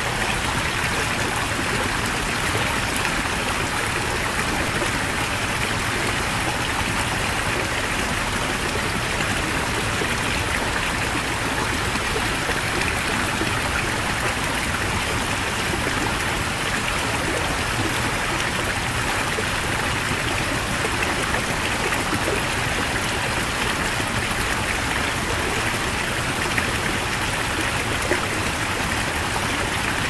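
Heavy mountain stream flowing: a steady, dense rush of water with no pauses or changes.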